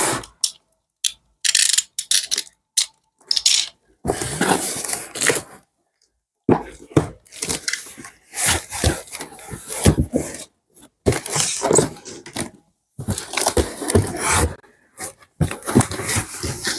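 A parcel's packaging being torn open and handled: irregular bursts of tearing and rustling, broken by short pauses.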